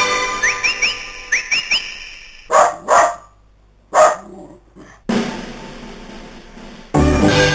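A dog barks three times, two quick barks and then a third about a second later, between stretches of background music.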